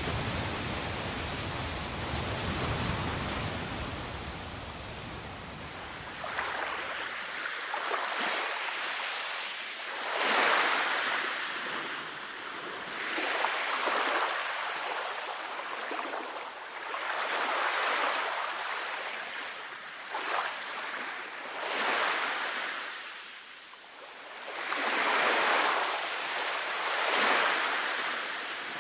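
Ocean waves washing up on a sandy beach. For the first several seconds the surf is a steady rush with a deep rumble; after that each small wave rises and falls on its own, about every three seconds.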